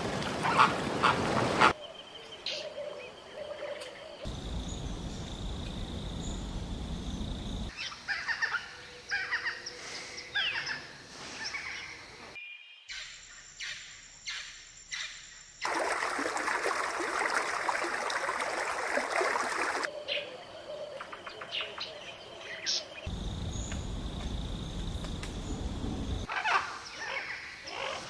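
A series of short outdoor nature recordings spliced together, each switching abruptly to the next every few seconds. Birds chirp and call over a background hiss, and a few stretches carry a low rushing noise.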